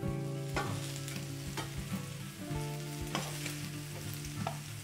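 Marinated chicken pieces sizzling in hot oil in a stainless steel frying pan as they are lifted out with a spatula, with a few clicks of the spatula against the pan.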